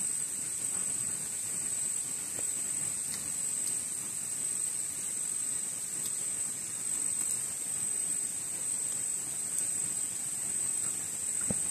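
Steady, high-pitched, unbroken drone of an insect chorus.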